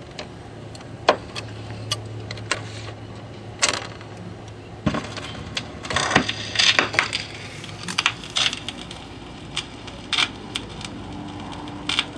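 Vintage Magnavox console record changer cycling between records: scattered clicks and clunks from the changer mechanism over a low steady hum, with a heavier knock about five seconds in. The next record's playback starts near the end.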